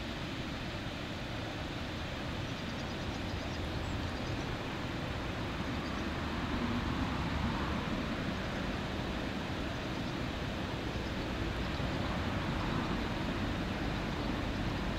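Steady low rumble of distant city traffic, swelling slightly around the middle.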